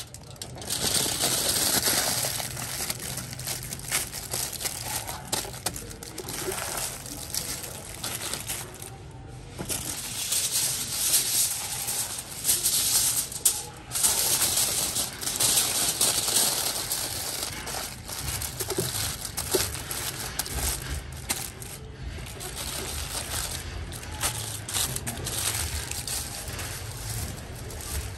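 Aluminium foil crinkling and crackling as it is folded and pressed by hand around a whole fish, with brief pauses about a third and half way through.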